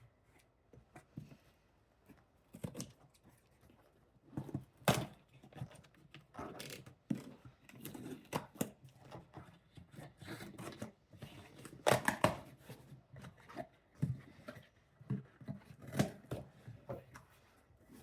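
A package being opened by hand: irregular tearing, rustling and crinkling of the packaging, with sharp snaps and handling knocks. The loudest rips come about five and twelve seconds in.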